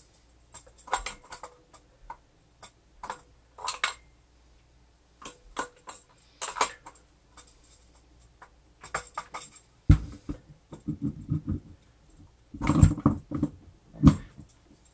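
Small metal parts of a Hamilton Beach Model 30 mixer motor clicking and tapping as they are fitted together by hand. About ten seconds in, the handling turns into a run of heavier knocks and rattles.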